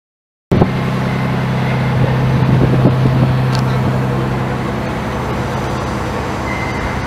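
Silent for about half a second, then a large engine running steadily with a deep, even hum.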